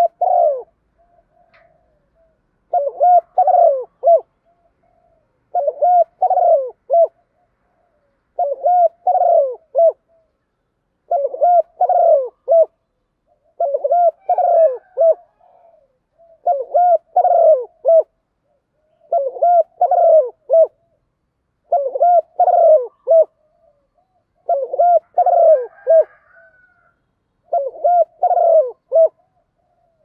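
Spotted dove cooing its repeated call, a decoy bird's call for luring wild spotted doves. Each phrase is a run of several low coos, repeated about every two and three-quarter seconds, eleven times.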